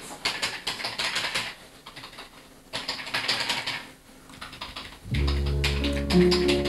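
Fast typing on a desktop computer keyboard, coming in bursts of rapid key clicks with short pauses between them. About five seconds in, louder music with a bass line starts over it.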